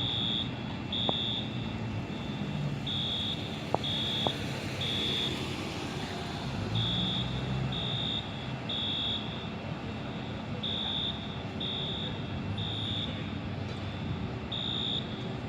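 Fire alarm sounding the temporal-three evacuation signal: three high-pitched beeps, a pause, then three more, repeating about every four seconds. A steady low rumble runs underneath, with a few sharp clicks in the first few seconds.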